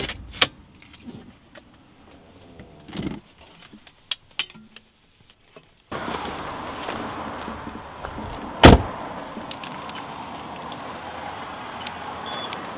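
Car door handled from inside: a few clicks and knocks in the quiet cabin, then the door opens about halfway through and outside air noise comes in. Near nine seconds the door slams shut with one loud bang.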